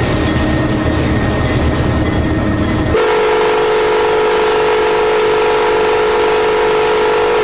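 Loud train rumble, then about three seconds in a multi-note train horn starts and is held steadily without a break.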